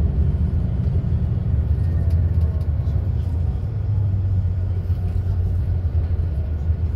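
Steady low rumble of engine and tyre noise, heard from inside a moving bus.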